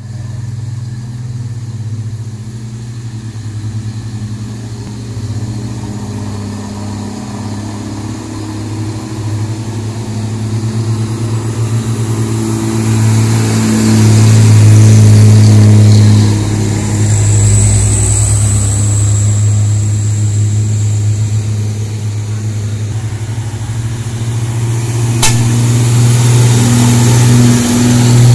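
Diesel engines of trucks loaded with sugarcane pulling uphill under load, a steady low drone that swells loudest as one truck passes close about 14 s in and again as another passes near the end. A brief high whine comes in partway through, and a single sharp click about 25 s in.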